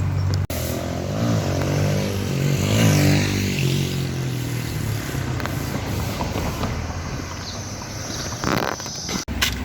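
Motor vehicle engine in street traffic, its note rising and then falling between about one and four seconds in as it passes, over steady road noise.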